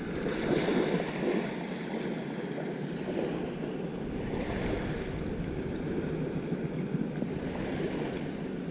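Ocean surf washing on a beach, swelling about every three to four seconds, with wind rumbling on the microphone.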